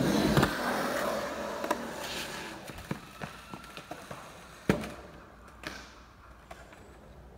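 Skateboard wheels rolling on concrete, fading away over the first two or three seconds, then scattered sharp knocks of skateboards hitting the concrete, the sharpest about four and a half seconds in.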